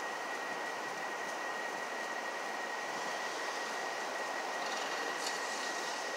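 Steady rushing noise with a thin, constant high whine running through it; no thunderclap or rumble rises out of it.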